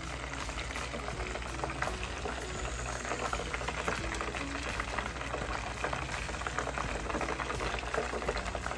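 Food frying in hot oil: a steady, dense crackle of many small pops and sizzles.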